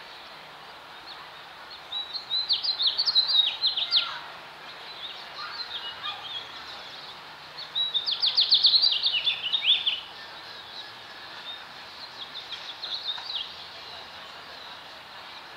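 A songbird singing high, rapid trilled phrases: two loud bursts of about two seconds each, with softer phrases between them, over a steady outdoor hiss.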